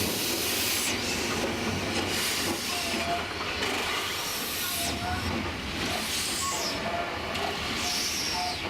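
Alco 2-8-0 Consolidation steam locomotive hissing steam, the hiss surging and easing every second or so.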